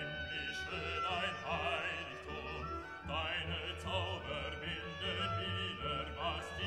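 Classical music: an operatic voice singing long notes with wavering vibrato over orchestral accompaniment.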